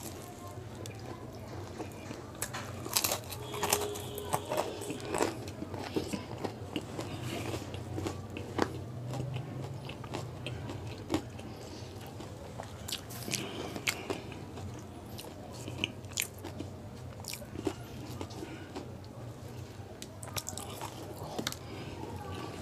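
A person biting and chewing a samosa close to the microphone: scattered crunches, crackles and wet mouth clicks of the crisp fried pastry, over a low steady hum.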